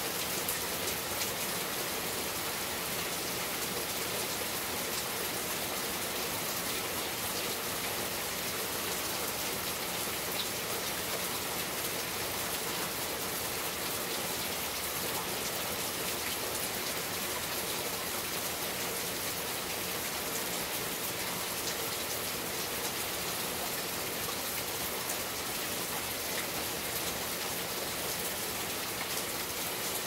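Steady rain shower falling on trees and leaf-covered ground, an even hiss of raindrops that holds unchanged throughout.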